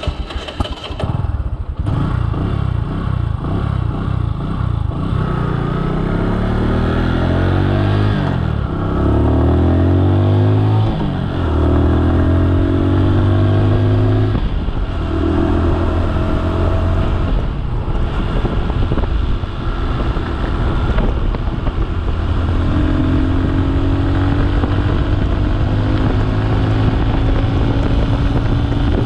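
Bajaj Boxer's small single-cylinder motorcycle engine running under way: its pitch climbs and falls back twice in the first half, then holds steady.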